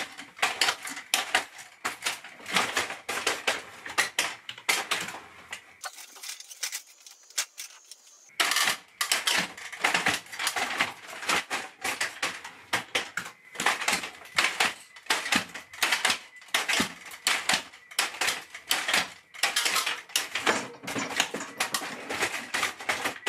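Clattering of a 3D-printed quadruped robot's legs, driven by brushless motors through back-driveable gearboxes, stepping rapidly and irregularly, with a pause of about two seconds around six seconds in. The robot keeps sinking onto soft, over-compliant legs and tips over near the end, because its drifting Hall-effect foot sensors read as always pressed.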